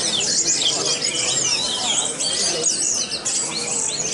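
Several orange-headed thrushes (anis merah) singing in a songbird contest: a dense, unbroken tangle of rapid, varied whistled phrases that overlap one another.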